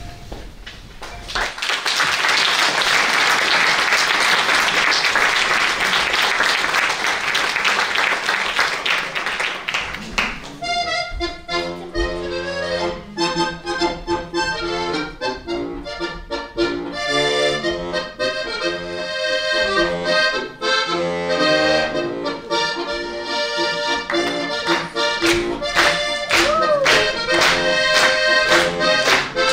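Audience applauding for about nine seconds, then a solo accordion starts playing a tune about ten seconds in, holding chords and running through short notes.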